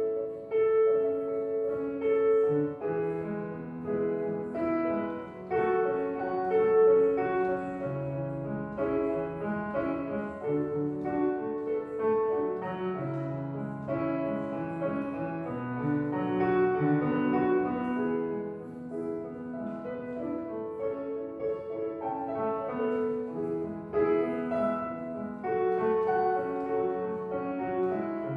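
A street piano being played: a melody over chords and bass notes, going on without a break.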